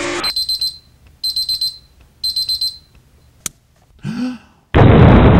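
A bomb's digital timer alarm beeping in three quick bursts of rapid high beeps, about one burst a second, then a click and a short rising-and-falling sound. Near the end a sudden loud explosion starts and keeps going.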